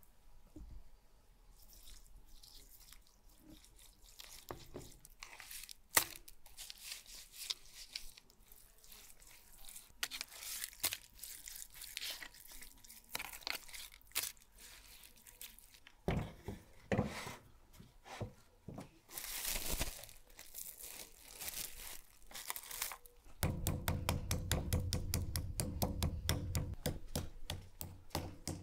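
Hands working oil into raw beef steaks on a tray: irregular wet squelching and slapping. Near the end, a meat mallet pounding meat on a wooden chopping block in a fast, even run of blows, several a second and the loudest part.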